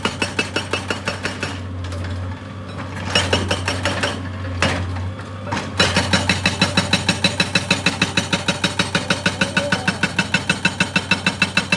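Excavator-mounted hydraulic rock breaker hammering rock in rapid, even blows, about five a second, over the steady hum of the machine's engine; the blows stop briefly twice, about two and five seconds in.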